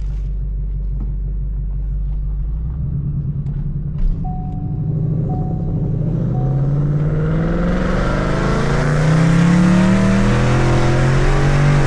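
2024 Ford Mustang GT's 5.0 V8 breathing through aftermarket Kooks headers, running steadily and then pulling away, its pitch rising and the exhaust getting louder in the second half. It is loud even with the exhaust valves in normal mode.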